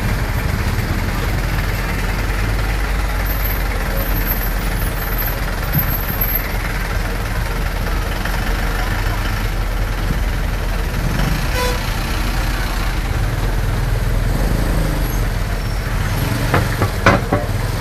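Steady engine and road rumble heard from the open back of a songthaew (pickup-truck shared taxi) moving slowly in traffic. A brief louder pitched sound stands out near the end.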